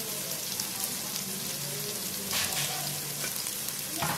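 Onion-tomato masala sizzling and crackling steadily as it fries in hot oil in a pot, with two brief louder bursts, one about halfway through and one near the end.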